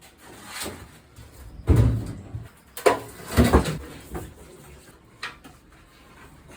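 A handful of dull knocks and thumps, the loudest about two and three and a half seconds in, with quiet stretches between them.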